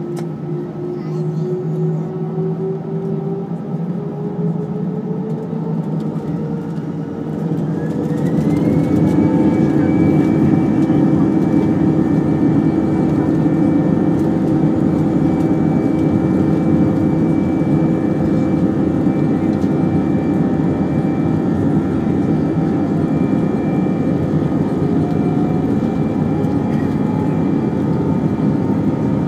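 Jet airliner's engines spooling up for take-off, heard from inside the cabin. Their whine rises steadily for about eight seconds, then the sound jumps in loudness and holds steady at take-off power through the take-off roll, a broad rushing noise with steady tones on top.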